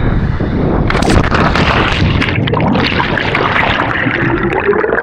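A sharp splash into water about a second in, followed by loud churning, rushing water noise with a low rumble, as of a body plunging in from a cliff jump.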